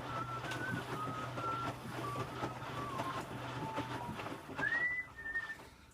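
A person whistling a tune, note by note, with a rising swoop near the end, over the running noise of an Electrolux W455H commercial washing machine mid-cycle. The machine's steady low hum stops about four seconds in.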